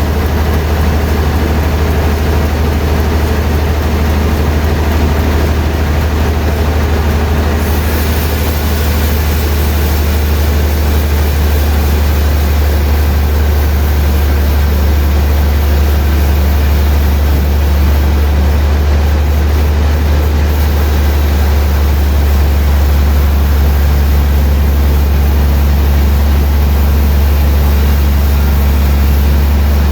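Sawmill machinery running steadily with a loud, low engine drone. A higher hiss joins about eight seconds in.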